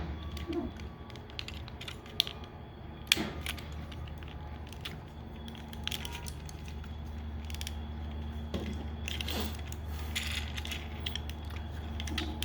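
Hard plastic parts of a Transformers Masterpiece Ratchet figure clicking and knocking as it is handled and folded, with scattered sharp clicks over a steady low hum.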